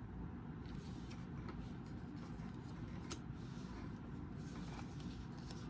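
Cardboard trading cards being flipped through by hand: faint soft ticks and rustles, one sharper tick about three seconds in, over a steady low hum.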